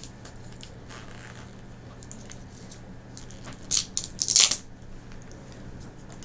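Plastic wrapper of a gummy candy packet being torn open by hand: two short crinkling tears, a little past three and a half seconds and about four and a half seconds in, the second longer and louder.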